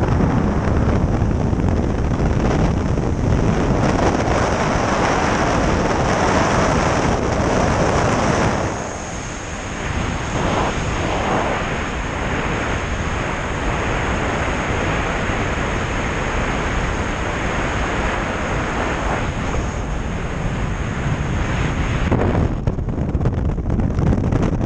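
Freefall wind rushing hard over the camera's microphone, with a thin steady high whistle joining it about nine seconds in.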